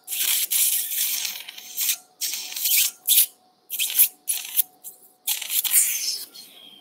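Surgical suction tip drawing blood and fluid out of the open ear-canal wound, in a series of hissing bursts, each lasting from half a second to nearly two seconds.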